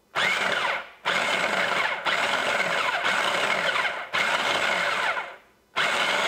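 Food processor pulsed repeatedly, about once a second with brief gaps and one longer pulse, its blade cutting cold butter into flour for pie dough.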